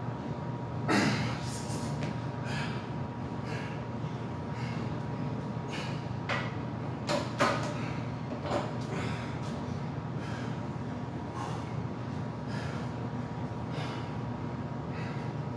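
Heavy breathing through a set of barbell squats, with a grunt about a second in and sharp metal clanks of the loaded barbell going into the rack hooks about seven seconds in, over a steady low hum.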